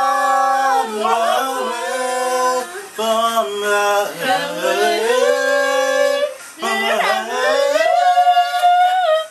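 A young man and two young women singing a pop song together, holding long notes with slides between pitches, in phrases broken by short pauses about three and six seconds in.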